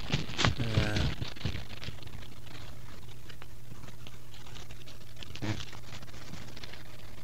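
A voice trails off in the first second. After it comes a steady low hum with scattered faint clicks and crackles, and one slightly stronger click about five and a half seconds in.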